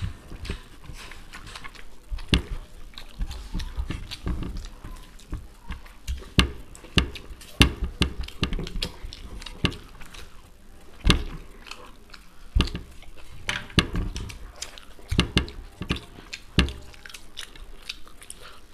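Close-miked eating by hand: irregular chewing and mouth smacking of fried rice and chicken Manchurian, with many small clicks and soft thumps as fingers pick food off the plates.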